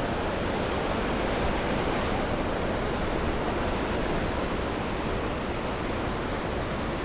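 Steady rush of the Niagara River's class 6 whitewater rapids churning through the gorge, an even, unbroken water noise.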